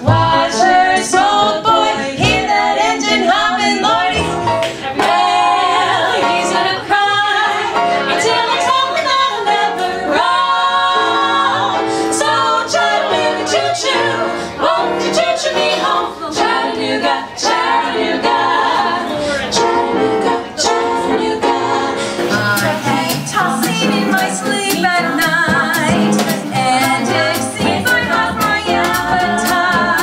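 Three women singing together in close harmony, a live female vocal trio. The recording changes about two-thirds of the way through, as the reel cuts to another performance.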